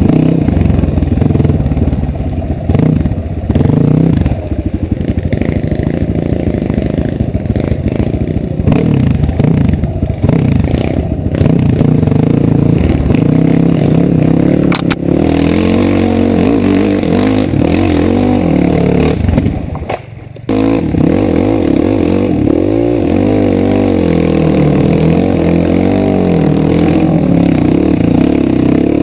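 Dirt bike engine running under changing throttle as the bike is ridden along a muddy trail, its note rising and falling, with a brief drop about two-thirds of the way through.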